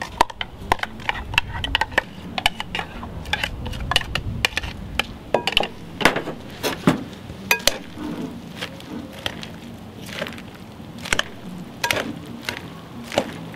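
Salad tongs clicking and tapping irregularly against a glass bowl as a romaine salad is tossed with its dressing.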